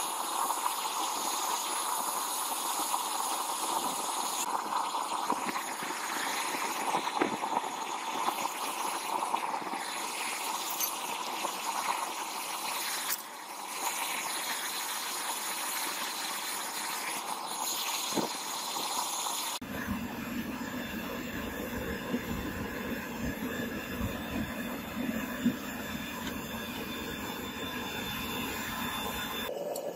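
Homemade gas-fired melting furnace running with its electric blower, a steady rushing burner noise. About two-thirds of the way through the sound changes abruptly and turns deeper.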